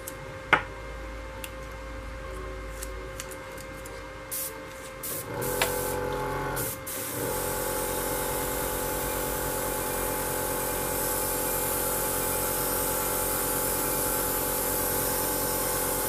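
Airbrush compressor switching on about five seconds in and running with a steady hum. From about seven seconds a steady hiss of air and paint from the airbrush joins it as a test spoon is sprayed.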